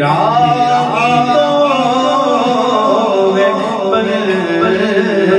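A man singing a naat (Urdu devotional song) into a microphone, in long drawn-out phrases that glide and ornament between notes, with a heavy echo effect on the voice and a steady low drone underneath.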